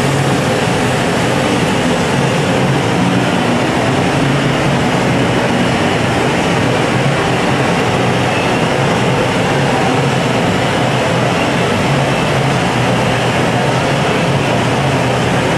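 Steady, loud rushing noise with a low hum from a glassblowing hot shop's gas burners and blowers, with hand-held torches firing on the glass.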